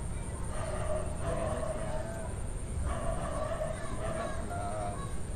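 Repeated wavering animal calls, in phrases of about a second each, over a steady thin high-pitched whine.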